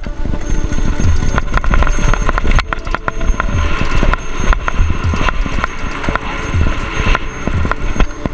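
Mountain bike clattering and rattling as it rides fast over a rough dirt and gravel trail, with many irregular sharp knocks from the frame and mount, over a steady rumble of wind on the camera microphone.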